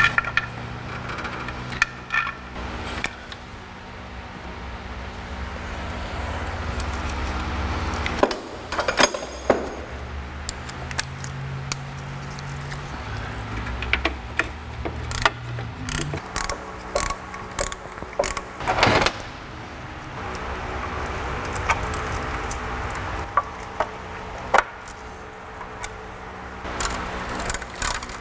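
Metal parts clinking and jangling as a timing chain and its sprockets are handled and fitted to an engine, in many short, irregular clicks over a steady low hum.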